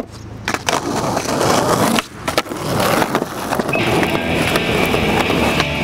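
Skateboard wheels rolling on rough concrete and asphalt, with several sharp clacks of a board in the first few seconds. A steady high tone comes in about four seconds in, as music starts under the rolling.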